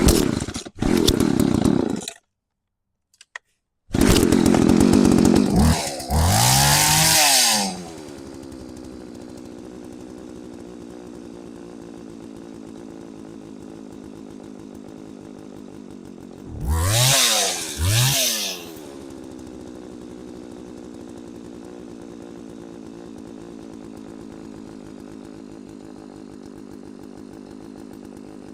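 McCulloch Mac 3516 two-stroke chainsaw running on an aftermarket carburetor: it revs high with a two-second gap early on, then drops to a steady idle about eight seconds in. Around seventeen seconds in, the throttle is blipped twice in quick succession before it settles back to idle.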